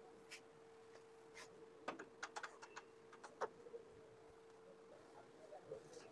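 Faint light clicks and taps of small parts being handled, about a dozen of them, most in the first three and a half seconds, over a faint steady hum.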